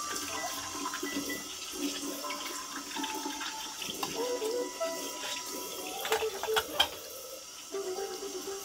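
Kitchen tap running and splashing onto a pot and then a mug being rinsed in a stainless steel sink, with a few clinks and knocks of dishware about six to seven seconds in.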